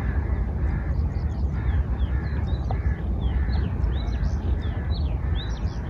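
Wind buffeting the microphone in a steady rumble, with crows cawing over and over, about twice a second, and smaller birds chirping.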